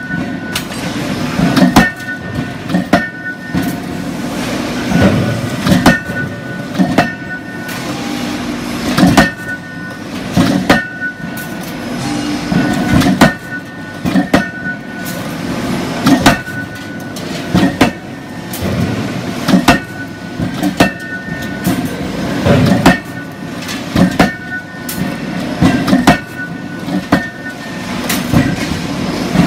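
Electro-hydraulic die forging hammer striking a red-hot stainless steel surgical scissors blank in a closed die: repeated heavy blows, often in quick groups of two or three, each with a short metallic ring, over a steady low machinery drone.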